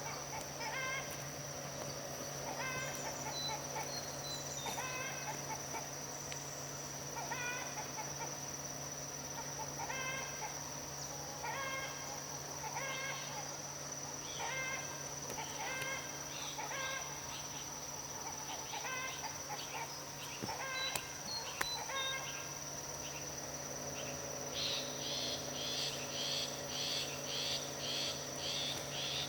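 Insects keep up a steady high-pitched drone. Over it, short animal calls repeat about once a second, and near the end a faster pulsing high call joins in.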